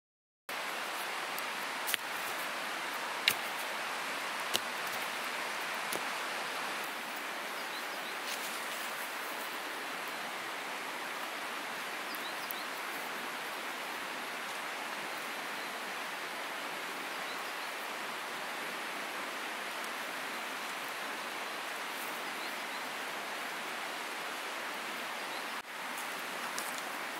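Steady rushing of a nearby river, with a few sharp clicks in the first few seconds.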